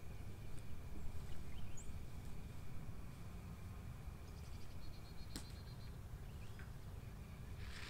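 Outdoor ambience: a steady low rumble with faint chirps of small birds and a short rapid trill about halfway through, then a single sharp click just after the trill.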